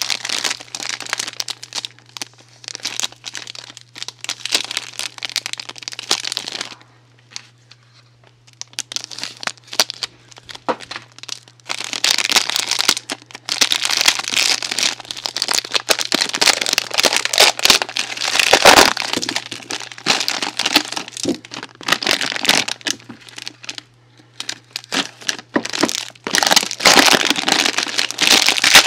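Soap packaging crinkling and crackling as it is unwrapped and handled, in busy stretches broken by two short pauses, over a faint steady low hum.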